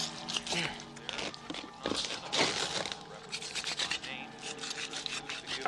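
Harsh scraping and rasping sound effects from a horror film soundtrack, coming in irregular strokes.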